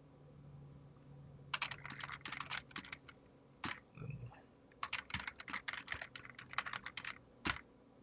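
Typing on a computer keyboard in quick bursts of key clicks, starting about a second and a half in and pausing briefly near the middle.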